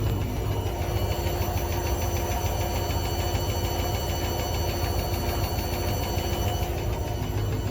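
Logik L712WM20 washing machine running, its motor and drum turning at a steady speed with an even hum and whine. This is during the final spin stage.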